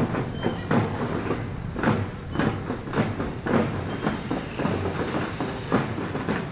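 Marching drum band playing a steady beat, a little under two strikes a second, over a low rumble of street noise.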